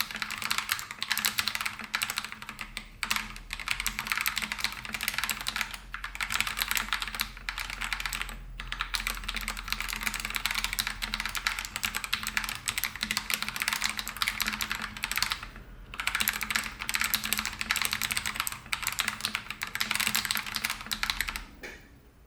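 Fast typing on an RK G68 mechanical keyboard with Krytox-lubed Akko CS Lavender Purple tactile switches, foam-filled case and PCB, and thick PBT XDA keycaps. The keystrokes come in quick runs with a few short pauses and stop shortly before the end.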